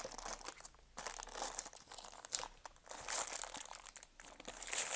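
Sealed plastic bag of 10p coins crinkling and rustling as it is handled and opened, in uneven stretches with two short pauses, loudest near the end.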